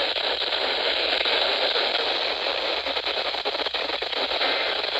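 Steady radio static hiss with scattered faint clicks and crackles, from a weak, barely received radio signal.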